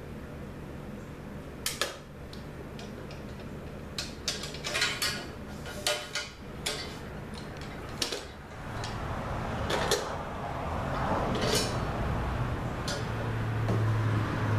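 Scattered metallic clinks and clanks as the sections of a garage door opener's metal rail are handled and turned over against the motor unit. A low rumble builds in the second half, loudest near the end.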